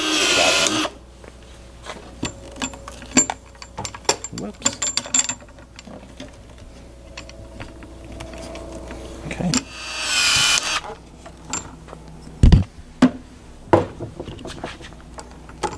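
Cordless DeWalt PEX expansion tool's motor whining in two short bursts, at the start and again about ten seconds in, as it expands the end of PEX-a tubing and its ring for a push-on fitting. Between the bursts, clicks and light knocks of plastic and brass fittings being handled, with one heavier thump about twelve seconds in.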